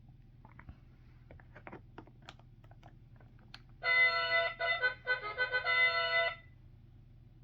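Light plastic clicks and taps of a toy figure being handled and pressed into place. Then, about four seconds in, the Fisher-Price Great Adventures Magic Castle's electronic sound chip plays a short trumpet fanfare, a bright tinny tune of a few notes lasting about two and a half seconds.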